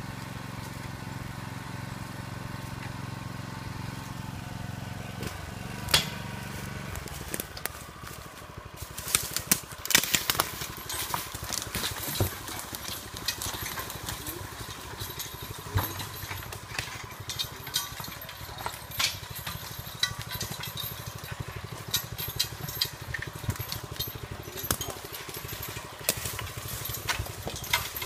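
Log loader's small engine running steadily, its note changing about five seconds in. From about nine seconds on, many sharp clicks and knocks are scattered over it.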